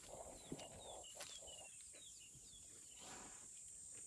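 Faint birdsong: a series of short, high, falling chirps repeated every few tenths of a second, over a steady high-pitched hum, with a few soft rustles.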